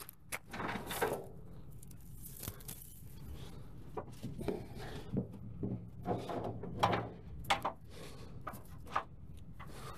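Tie-down hooks and chain being handled, giving irregular metal clinks, rattles and clanks over a steady low hum.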